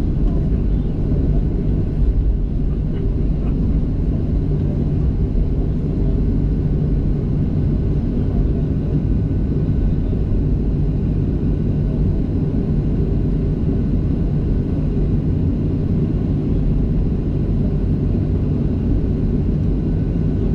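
Steady low rumble of a Boeing 737's jet engines running at low power after landing, heard inside the passenger cabin.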